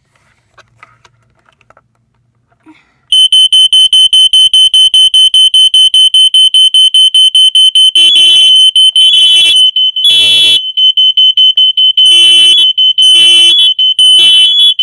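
Interconnected hardwired smoke alarms going off. A piercing high-pitched rapid beeping starts about three seconds in. From about eight seconds in a second, lower-toned alarm sound joins it, beeping in groups of three long beeps.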